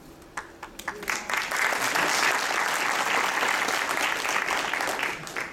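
Audience applauding: a few scattered claps, then full applause for about four seconds that stops shortly before the end.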